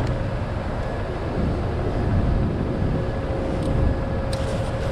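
A steady low rumble with a faint, steady mid-pitched hum over it.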